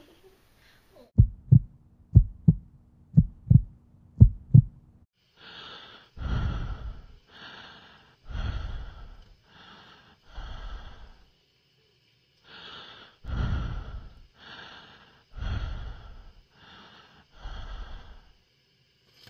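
A heartbeat thumping in double beats, about four of them at roughly one a second, then slow, heavy, raspy breathing, in and out about six times with a short pause midway. These are horror-film sound effects for an unseen watcher.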